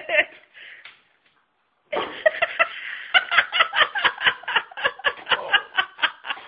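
People laughing in quick, repeated ha-ha pulses, about five a second: a short laugh at the start, a pause of about a second, then a long run of laughter from about two seconds in that stops just before the end.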